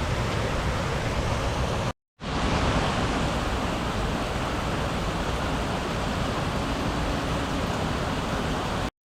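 Waterfall rushing: a steady, even wash of falling water, broken by a brief gap of silence about two seconds in.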